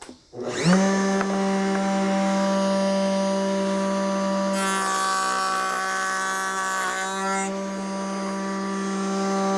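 A router spins up about half a second in and runs steadily with a high hum. For about three seconds in the middle, a lock miter bit cuts along the edge of a hardwood board, adding a harsh cutting noise. The motor starts to wind down right at the end.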